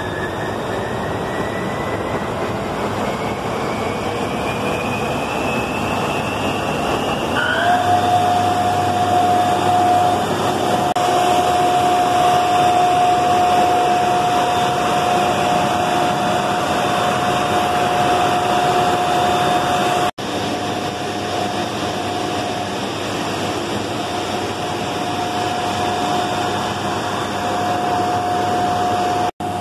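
355 kW, 3.3 kV slip-ring induction motor driving a vertical pump, running up on its liquid resistance starter: a whine rises steadily in pitch as the motor gathers speed, then about seven seconds in it jumps to a steady lower whine as the motor settles at full running speed, over a broad running noise.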